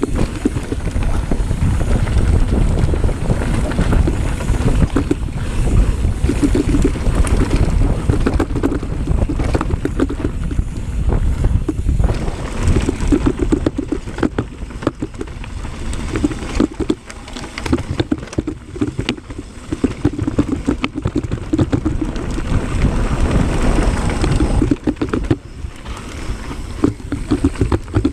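Mountain bike tyres rolling fast over dirt and rocks: a steady loud rumble broken by many small knocks and rattles as the bike hits rocks, with wind buffeting the microphone.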